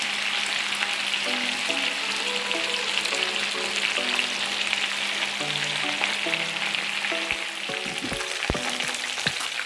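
Chicken pieces frying in hot oil in a saucepan: a steady sizzle, with a few sharp knocks near the end. Soft background music plays underneath.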